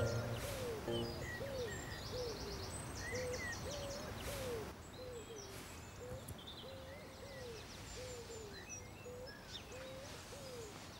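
Quiet dusk ambience: short, soft hooting calls repeat every half second or so, with faint cricket-like chirping and occasional high twitters. It grows a little quieter about five seconds in.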